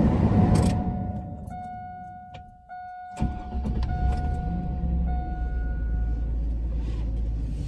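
A 2001 Chevy Silverado being started. A loud burst of rustling noise opens, then the dashboard warning chime dings repeatedly. About three seconds in, the engine catches and settles into a steady low idle under the chime.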